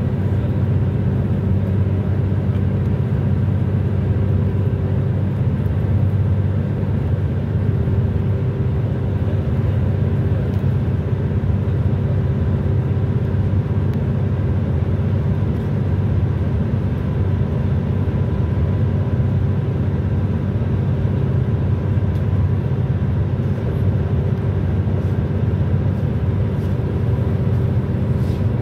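Steady road noise of a car cruising at motorway speed, heard from inside the cabin: a constant low rumble of tyres and engine with a faint steady hum above it.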